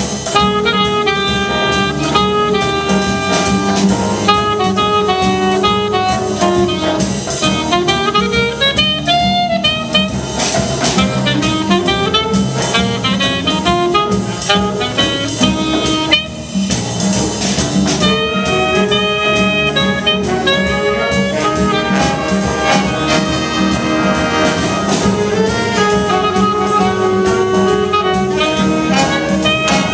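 Middle school jazz band playing with a steady beat: a saxophone solo stands out over the band, and the trumpets come in near the end.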